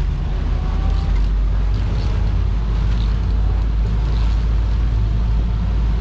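Steady low rumble of wind buffeting the microphone on a boat at sea, with the wash of water and waves underneath.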